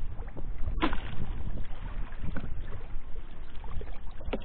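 Steady low rumble of wind and water on the microphone, with no motor whine, and a few sharp knocks: one about a second in and a couple near the end, as the drifting RC catamaran is caught by hand.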